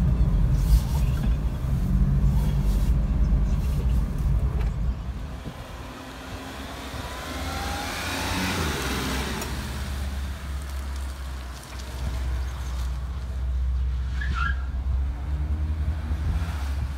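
1996 Daihatsu Hijet van's twin-cam engine running with a steady low rumble, louder for the first few seconds and quieter after. A rushing sweep passes about eight seconds in, and a short high chirp comes near the end.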